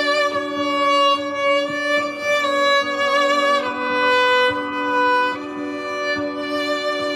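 Solo viola bowed slowly, playing long sustained melody notes over a held low drone note layered from a loop pedal. The melody steps down in pitch about halfway through.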